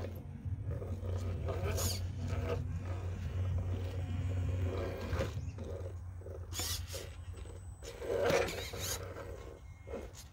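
Scale RC rock crawler (Austar SCX10 II clone with an Injora 35-turn 540 brushed motor) crawling slowly over rock, its motor and geared drivetrain growling at low throttle. A louder burst of noise about eight seconds in.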